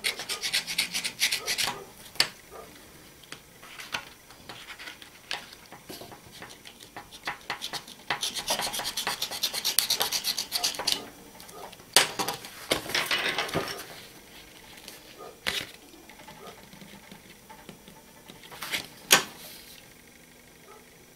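Utility knife (box cutter) blade drawn through cardstock on a table: several scratchy, rasping cutting strokes, each a second or two long, with a few sharp clicks in between.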